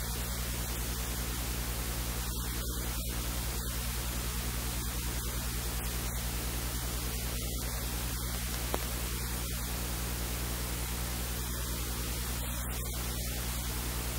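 Steady electrical mains hum with its evenly spaced overtones under constant hiss, and a single faint click about nine seconds in.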